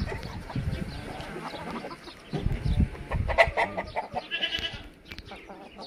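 Farmyard chickens clucking: a run of short clucks about three seconds in, then a short high squawk a second later, over a low rumble in the first half.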